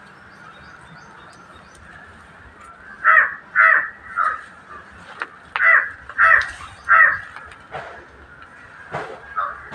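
A crow cawing: two runs of three loud, harsh caws, the first about three seconds in and the second a couple of seconds later, then a few fainter caws near the end.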